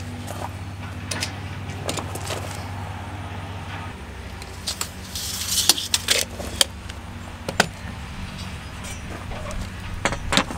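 Sharp clicks and taps of a metal drywall T-square and tape measure being handled and set down on a sheet of drywall, with a short rasp about five seconds in, over a steady low mechanical hum.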